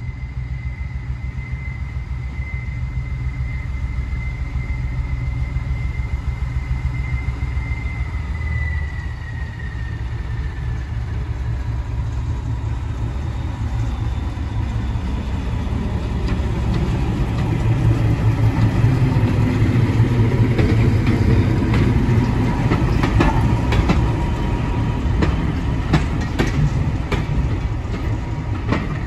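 British Rail Class 14 diesel-hydraulic locomotive, its Paxman Ventura V6 diesel engine running as it approaches hauling a coach and growing louder as it comes near. A high whine falls in pitch about nine seconds in. Sharp clicks of wheels over rail joints come in the last few seconds as it passes.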